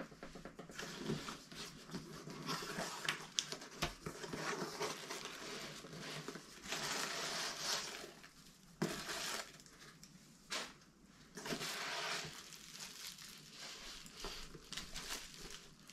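Hands rummaging through shredded paper packing fill in a small cardboard box and lifting out a plastic-wrapped item: irregular rustling and crinkling, with a few light knocks.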